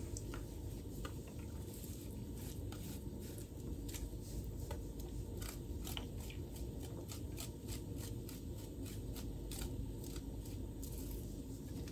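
Vegetable being rubbed by hand across the fine side of a flat stainless-steel hand grater: a quiet, uneven run of short rasping scrapes.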